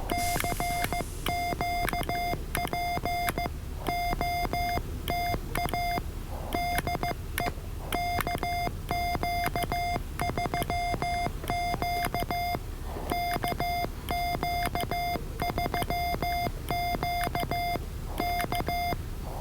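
Morse code (CW) from a ham radio transceiver: a single steady beep tone keyed on and off in dots and dashes, with short pauses between groups.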